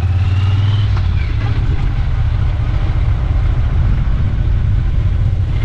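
Triumph Bonneville T120's parallel-twin engine running with a steady low rumble as the motorcycle rides along a cobbled road.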